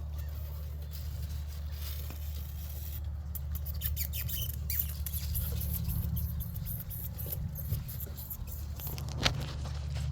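Puppies' paws and claws scratching and pattering in a run of quick, light clicks and scrapes, over a steady low hum.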